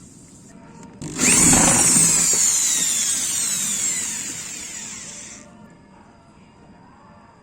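A small electric power tool motor is switched on briefly, then whines down in pitch as it coasts to a stop over about four seconds.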